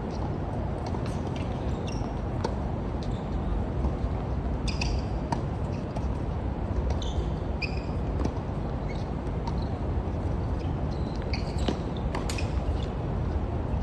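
Tennis balls being struck by rackets and bouncing on a hard court during a rally: scattered sharp pops, a few short high squeaks, over a steady low background rumble.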